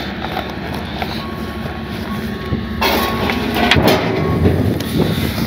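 Heavy diesel truck engine running steadily as the truck backs the detachable gooseneck onto the lowboy trailer, getting louder about halfway through. A few metal knocks come in the second half as the gooseneck seats into its latch.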